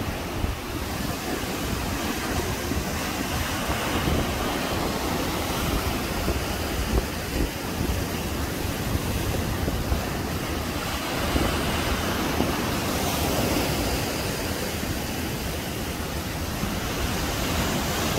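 Rough surf breaking and washing in a steady rush, with wind rumbling on the microphone.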